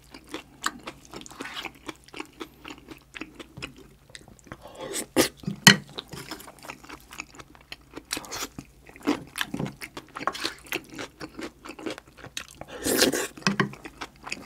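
Close-miked chewing of a mouthful of curry rice and kimchi, with wet mouth clicks and smacks. Louder moments come about five seconds in and again near the end.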